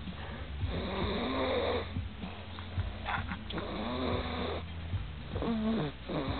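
Snoring in slow, rasping breaths, one about every two seconds, some with a wheezy tone.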